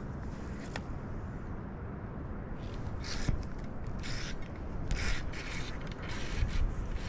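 Wind rumbling on the microphone, with a run of short rasping, creaking bursts from about two and a half seconds in: handling noise of the rod and baitcasting reel being worked close to the microphone.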